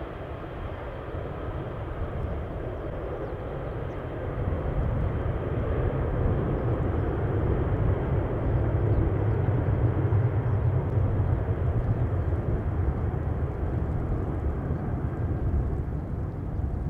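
Boeing 767-300ER's twin turbofan engines at takeoff power as the jet climbs out, a steady low roar that swells about four seconds in and eases slightly near the end.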